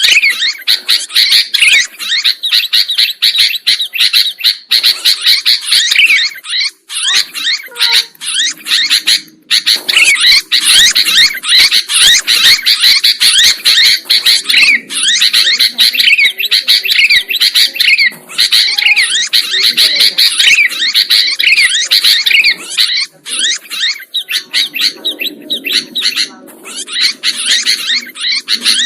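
Sooty-headed bulbul (kutilang) chattering noisily and vigorously: fast, high chirps and squawks run almost without pause, broken only by a few brief gaps.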